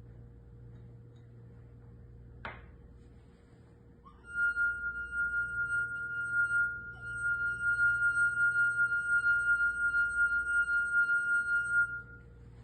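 Glass rim rubbed with a finger, ringing a steady high singing tone for about eight seconds, its loudness pulsing slightly and dipping briefly midway. A short click comes a couple of seconds before the tone starts.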